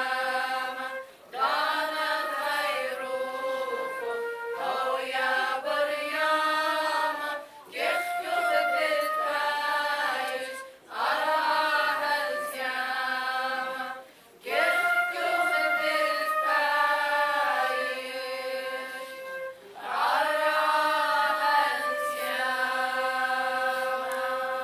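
Women's choir singing a church hymn with flute accompaniment, in sustained phrases broken by short pauses every few seconds.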